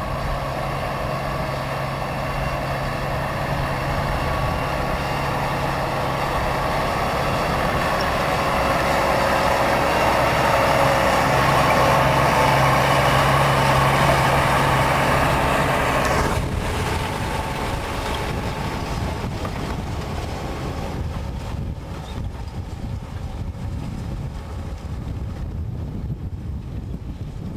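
New Holland T7.260 tractor's six-cylinder diesel engine pulling a plough, with a steady hum. It grows louder, then drops off abruptly about sixteen seconds in and stays fainter after that.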